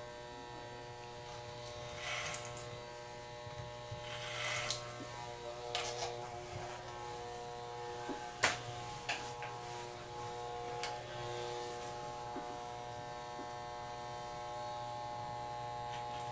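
Electric hair clippers running with a steady hum. Short bursts of buzzing noise come as the blades cut through thick hair, and there are a few sharp clicks, the loudest just past the middle.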